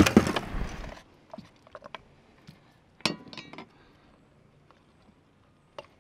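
A second of loud handling noise and knocks. Then faint small clicks and clinks as a jig hook is worked out of a big snook's mouth, with one brief pitched sound about three seconds in.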